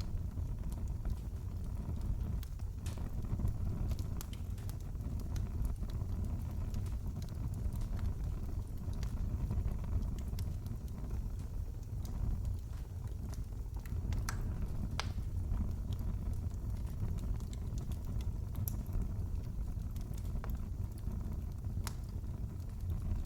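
Wood fire crackling in a fireplace: a steady low rumble of flame with scattered small pops and snaps throughout.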